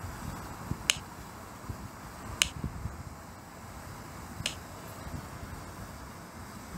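Three short, sharp clicks, about one, two and a half and four and a half seconds in, from fingers tapping the drone controller's phone screen, over light wind noise on the microphone.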